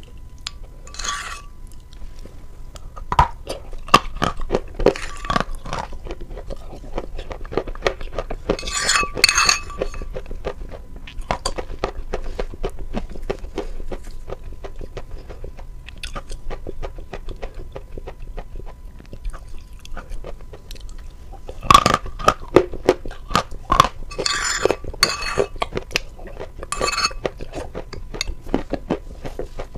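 Close-miked eating of frosted vanilla loaf cake: bites and chewing with dense, crisp crunching, loudest in clusters about a third of the way in and again after about 22 seconds.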